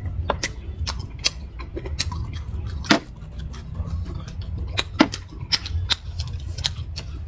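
Eating at close range: chewing, with irregular small clicks and smacks from mouth and food, over a steady low hum.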